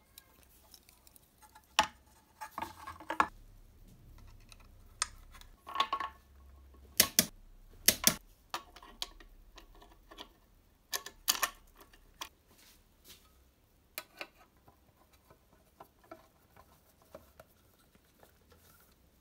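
Scattered sharp clicks and clinks of metal parts being handled and fitted on a Vespa 150 VBB engine's carburettor, air filter and carburettor-box cover, the loudest a few seconds in and around the middle, with lighter taps toward the end.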